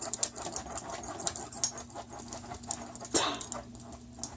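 Dog making a rapid, irregular run of small clicking and snuffling noises, with one louder burst about three seconds in.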